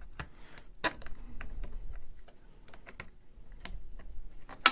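Irregular light clicks and rattles of wires, ribbon cables and plastic connectors being handled against a 3D printer's mainboard, with a sharper click about a second in and another near the end.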